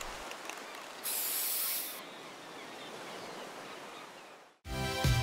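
Steady hiss with a louder, brighter rush of noise about a second in. It cuts to a moment of silence, and the show's theme music comes in with a beat near the end.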